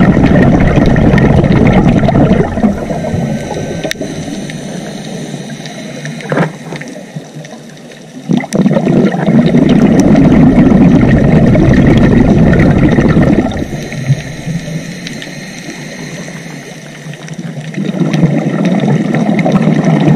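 Muffled underwater rumble and gurgle of a scuba diver's exhaled bubbles from the regulator, heard through a camera housing. They come in long loud bursts at the start, about nine seconds in and near the end, with quieter gaps between breaths.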